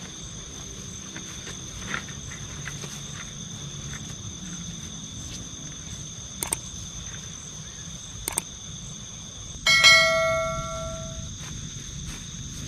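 Night insect chorus, crickets trilling as two steady high tones, with a few faint clicks. About ten seconds in, a single metallic bell-like ring strikes and dies away over about a second and a half.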